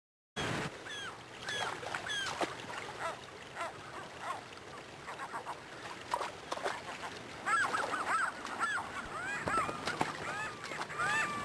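A flock of gulls calling: many short, arched cries overlapping, starting suddenly and growing busier about seven seconds in.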